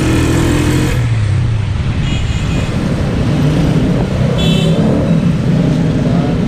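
Honda CG125's single-cylinder four-stroke engine running under way in road traffic, with a short vehicle horn toot about two seconds in and another about four and a half seconds in.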